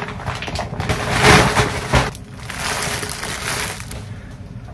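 Cloth rustling and swishing as a piece of fabric is handled and shaken out, loudest about a second in, then a softer hiss that dies away near the end.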